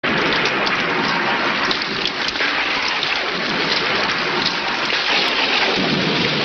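Steady rain pouring down, a dense even hiss with scattered drop patter.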